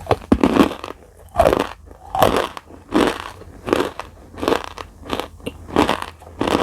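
A person chewing dry, crumbly edible clay (Nakumatt clay) close to the microphone. A crunchy bite at the start is followed by steady, even chews, about one every three-quarters of a second.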